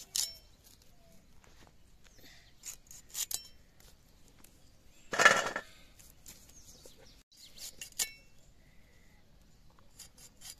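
Moringa drumstick pods being chopped against an upright foot-held cutting blade, giving short crisp snaps and light clinks of the blade, some with a brief metallic ring. About halfway through comes a louder clatter, the cut pieces landing on a steel plate.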